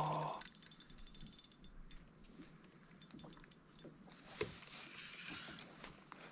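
Fishing reel clicking faintly: a fast, even run of ticks that stops about two seconds in, then a few scattered clicks.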